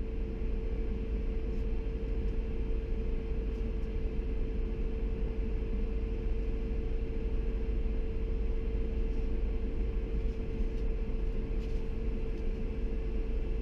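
Steady low engine and road rumble heard from inside the cab of a Dodge Dakota pickup, with a steady even hum above it.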